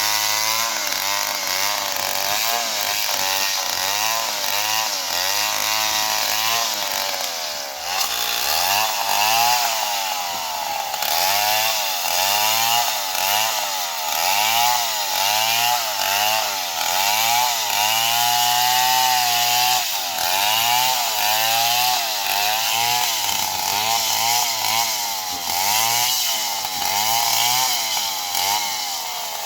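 Stihl chainsaw running loud, its engine pitch rising and falling over and over, about once a second, as it is throttled while cutting into a palm tree. There is a brief dip about a quarter of the way through.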